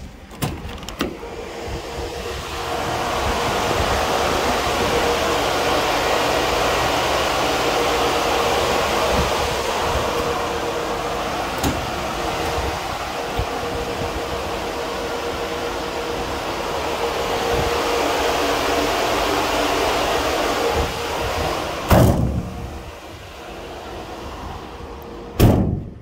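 Rear cargo doors of a Citroën Jumper refrigerated van: latch clicks as they open, a steady fan-like whir with a faint hum while the insulated box stands open, then two loud slams about three seconds apart as the doors are shut near the end.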